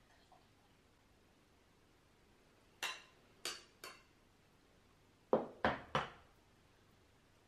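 Three beer glasses clinking together in a toast, each clink ringing briefly, then about a second and a half later three louder, duller knocks of the glasses on the table.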